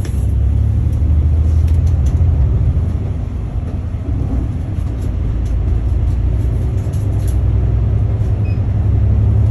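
Daewoo city bus driving, heard from inside the cabin: a steady, loud low engine and road rumble with faint clicks.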